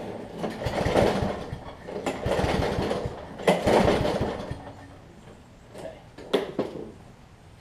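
Kohler XT7 Courage engine on a push mower being pull-started three times. Each recoil pull cranks the engine in a quick run of compression chuffs that dies away without the engine catching, typical of a no-start engine. A few light clicks follow.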